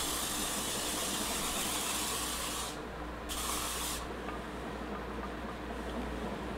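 Aerosol spray starch hissing from a can onto a shemagh to stiffen the fabric before ironing: one long spray of about two and a half seconds, then a short second spray of under a second.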